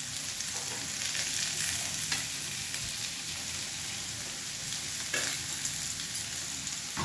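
Sliced potatoes sizzling in oil in a nonstick frying pan while a steel spoon stirs and scrapes them around the pan: a steady frying hiss with light scraping.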